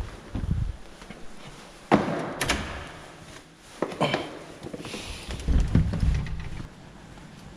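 A few thuds and knocks, the sharpest about two seconds in and another about four seconds in.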